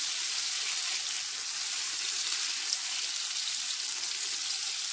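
Butter sizzling steadily as it melts into hot caramelized sugar in a frying pan while it is stirred with a silicone spatula.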